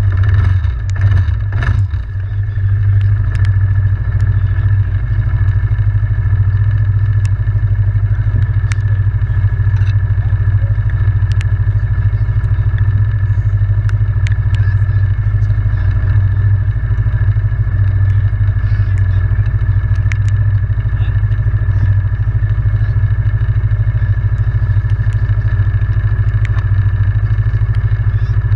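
Yamaha Grizzly 700 ATV's single-cylinder engine running at a steady, unchanging speed, loud and close, with scattered clicks and rattles.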